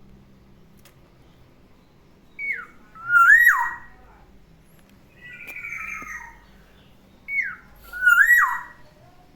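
Black-naped oriole singing: two loud, fluty whistled phrases, each a short falling note followed by a whistle that swoops up and then drops, with a harsher, raspy call between them.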